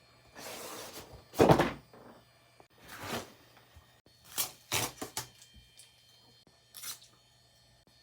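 Handling noises from unboxing and fitting a graphics card: a brief sliding rustle of packaging, one dull thunk about a second and a half in, then a few scattered knocks and clicks.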